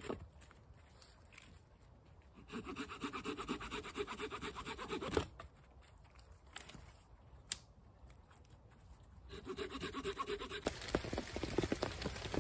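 A hand blade rasping back and forth through a wet branch in two bursts of fast strokes, with a few sharp clicks of wood between them. Near the end, rain patters on a tarp shelter.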